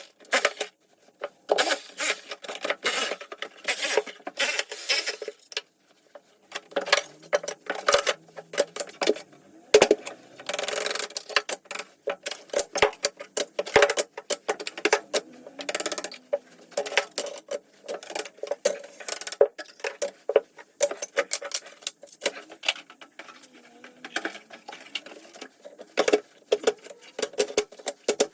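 Ceramic wall tiles being knocked and prised off a kitchen splashback: irregular sharp knocks and cracks of a tool against tile, with short spells of scraping.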